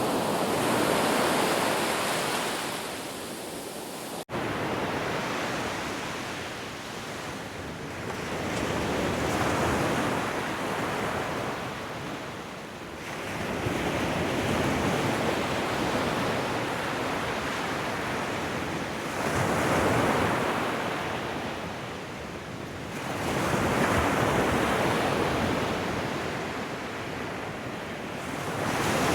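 Ocean waves breaking and washing on a shore, swelling and receding in slow surges every several seconds. A momentary dropout about four seconds in.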